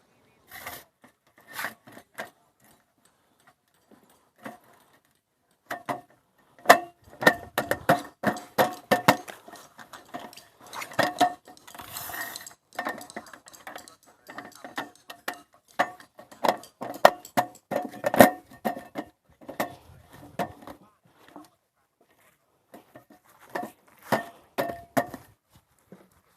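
Utensils clinking and tapping against dishes or cookware, in irregular runs of quick ringing taps. The taps are sparse at first, come in a busy stretch from about six seconds in, and return briefly near the end.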